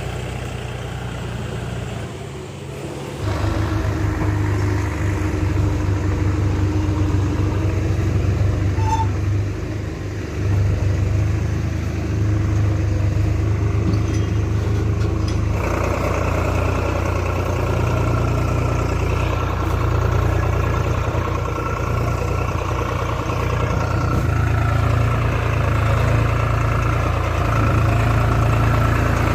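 Heavy diesel machinery engine running under changing load. It grows louder about three seconds in, dips briefly around ten seconds, and shifts in tone around the middle, as when the engine is worked harder and eased off during loading.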